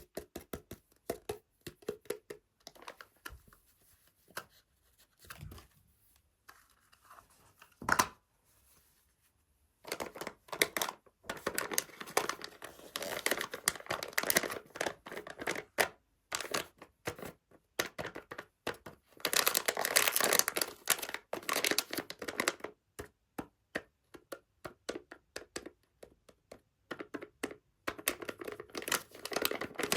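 Plastic wrapping of a blind-bag surprise toy being torn open and crinkled by hand. The first stretch has only faint scattered rustles and one sharp snap, then denser, louder crinkling and tearing comes in bursts.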